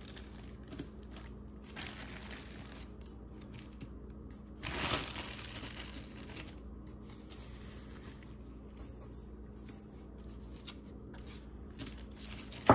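Loose costume jewelry (rings and small metal pieces) clinking and rattling as it is picked through by hand, with a louder rustle about five seconds in and a sharp clink near the end. A faint steady hum runs underneath.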